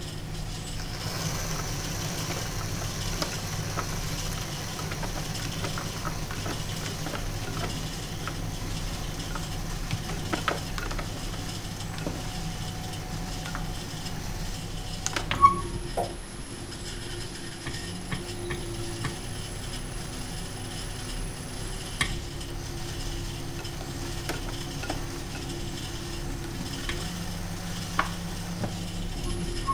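Metal loop trimming tool shaving leather-hard clay from the base of a pot spinning on a potter's wheel: a steady scraping hiss as ribbons of clay peel away, over the low hum of the wheel. A few sharp clicks, the loudest about halfway through.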